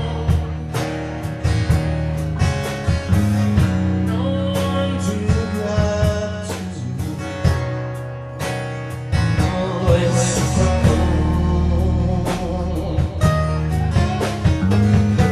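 Live band music: strummed acoustic guitar over a bass guitar line, with a second guitar playing melodic lines.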